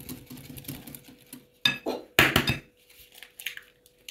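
Metal balloon whisk beating egg into a yeast batter in a glass bowl: a quick run of soft ticks of the wires against the glass, which stops after about a second and a half. Then, around the middle, a few loud clinks of metal on glass.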